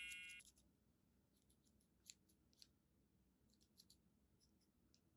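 Near silence, with a chime's tail dying away at the start, then a few faint, light snips of small scissors in small clusters of two or three.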